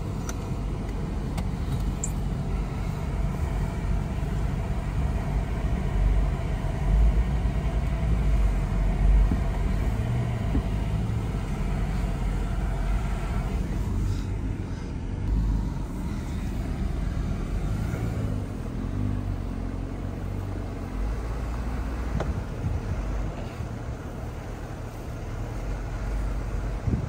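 Jeep driving slowly along a dirt trail, heard from inside the cabin: a continuous low engine and road rumble that swells and eases as it goes.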